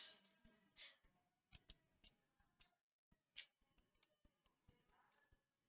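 Faint, irregular computer keyboard keystrokes: a few isolated key clicks over near silence, the clearest about three and a half seconds in.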